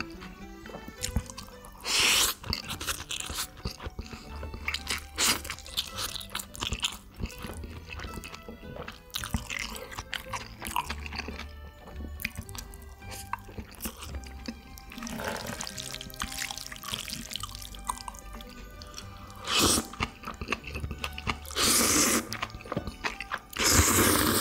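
A person chewing and eating noodles and bean-sprout bulgogi close to the microphone, with wet mouth clicks and several louder bursts of eating noise, over background music.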